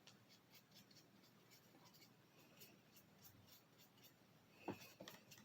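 Faint brushing and scratching of a paintbrush stroking paint onto a paper mache clay bird, with a sharper tap about four and a half seconds in.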